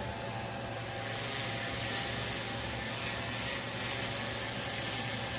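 Pulsed laser cleaner firing on soot-covered carved stone, a high, hissing rasp that starts about a second in and holds steady.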